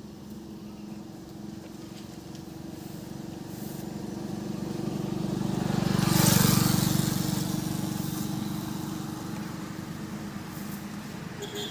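A motor vehicle passing on the road: its engine and tyre noise grow louder to a peak about six seconds in, then fade away.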